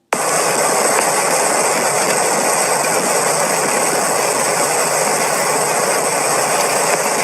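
A loud, steady rushing noise, like a blast or beam sound effect, that cuts in suddenly and holds without change.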